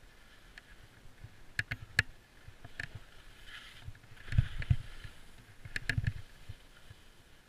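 Skis sliding and scraping over packed, bumpy snow, with several sharp clicks and clatters and low thumps as they run over bumps; the loudest scrape and thump come a little past halfway, with another near the end.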